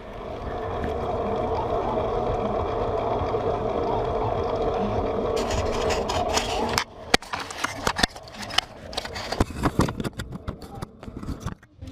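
Mountain bike on a dirt trail: a steady mechanical buzz for about the first seven seconds, then a run of sharp knocks and rattles.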